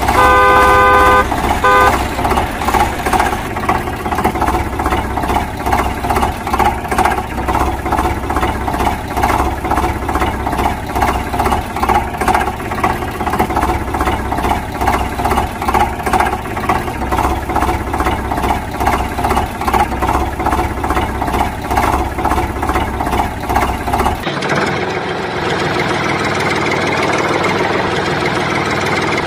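A vehicle horn honks twice at the start. Then a rhythmic chugging engine sound runs on. About 24 seconds in it switches abruptly to a steadier engine hum.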